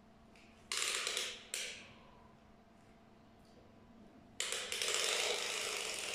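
Retractable tape measure being pulled out, a rattling, ratcheting rasp of the blade running from its case: a short pull about a second in, then a longer pull from about four and a half seconds on.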